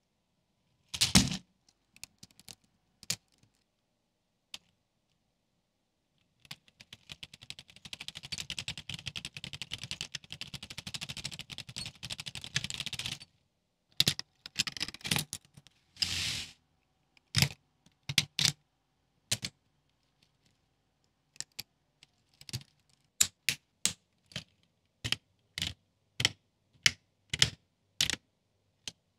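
Lego Technic plastic parts being handled and snapped together: sharp separate clicks and snaps, with several seconds of rapid continuous clatter of tread links near the middle.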